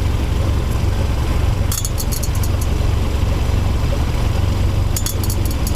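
New BMW 3 Series sedan running at low speed with a steady low drone, and two short bursts of clicking about two seconds in and near the end: the abnormal driveshaft noise the owner complains of.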